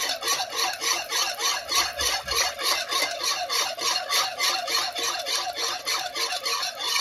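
A utensil stirring a thin liquid mixture of coconut water, custard flour and condensed milk in a bowl, scraping the bowl in a brisk, even rhythm of about four to five strokes a second.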